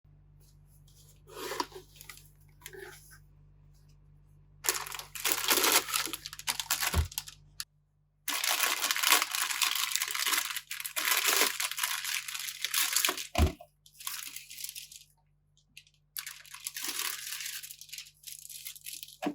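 Toy pistol packaging being torn open and crinkled in long rustling stretches, with two brief low knocks.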